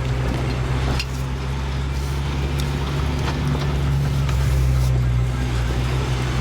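Steady low rumble of a running car, the 1994 Acura Integra's four-cylinder engine, with a few faint clicks over it.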